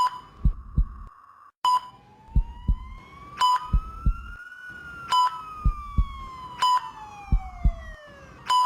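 ICU patient-monitor sound effect: a short beep about every one and a half to two seconds, with a double heartbeat thump between beeps. A siren wails once over it, rising through the first half and falling away toward the end. A steady high hum at the start cuts off about a second and a half in.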